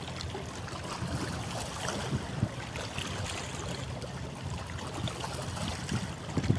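Harbour water sloshing and splashing, over a low steady rumble from a boat on the water.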